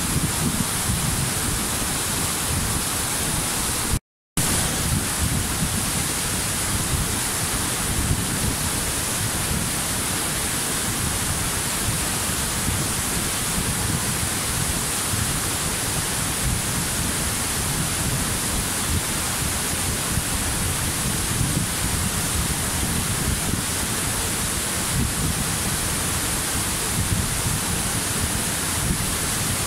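Waterfall rushing in a steady, even roar of falling water, broken by a brief cut-out of the sound about four seconds in.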